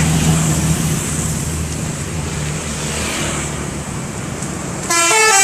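Bus engine rumble and road noise, the engine hum fading away. Near the end a multi-tone telolet bus horn suddenly starts, stepping through a quick tune of several notes.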